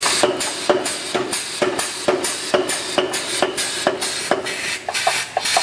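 Big Blu Mark 3 pneumatic power hammer with a 110 lb ram striking a bar on its anvil in a steady run of blows, about two a second, each with a short ring, and a hiss between them. Near the end the blows come quicker and lighter.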